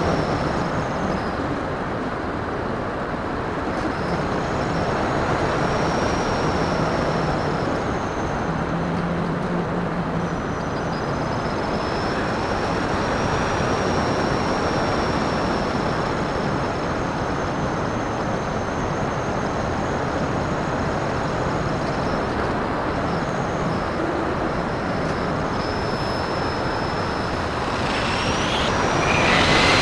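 Airflow rushing over the onboard camera of a Phoenix 2000 electric RC glider in flight, with the thin high whine of its electric motor wavering slightly in pitch. Near the end the whine grows louder and more tones join it, as from more throttle.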